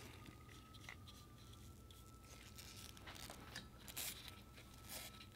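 Near silence with a few faint clicks and rustles from gloved hands handling head-stud washers and nuts while coating them with assembly lube. A faint steady high tone runs underneath.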